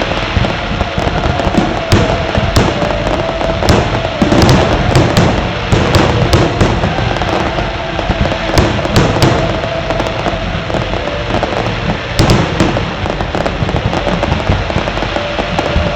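Fireworks display in a continuous barrage: many sharp bangs and crackling bursts over a dense rumble, with no break.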